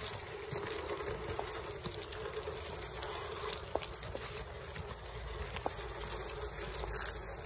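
Small electric RC rock crawler driving over loose gravel: a steady crackle and crunch of stones under its tyres with a steady motor whine, and a few sharp clicks of pebbles.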